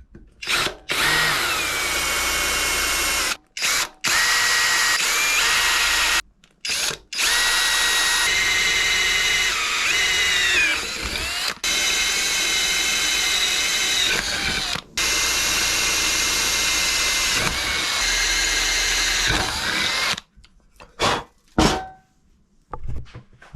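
Electric drill boring the fixing and wire holes in a powder-coated motorcycle battery box. It runs in several long bursts of steady whine with short pauses between, and the pitch sags briefly about ten seconds in as the bit loads up. A few quick blips of the trigger come near the end.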